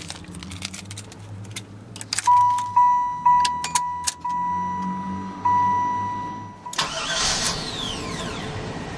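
1994 Buick Roadmaster's dashboard warning chime ringing one steady tone, restruck about every half second for roughly four seconds, over a low steady hum, with a few clicks from the column controls. Near the end a steady rush of noise comes in.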